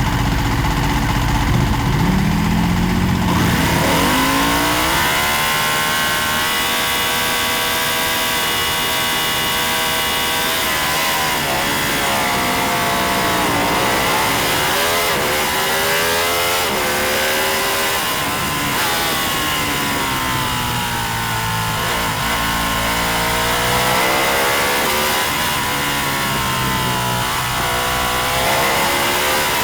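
Road-racing motorcycle engine running hard, its note climbing in pitch, dropping at each shift and climbing again, then falling and rising through braking and acceleration several times. A low rumble in the first few seconds gives way to a rising engine note with rushing wind noise.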